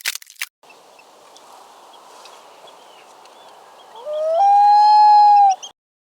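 A few sharp clicks at the very start, then faint outdoor ambience with small high bird chirps. About four seconds in, a loud, drawn-out animal call rises in pitch, holds for about a second and a half, and cuts off suddenly.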